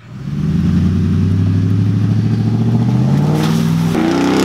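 Pickup truck engine revving, its pitch climbing steadily over a few seconds; about four seconds in it jumps abruptly to a higher rev.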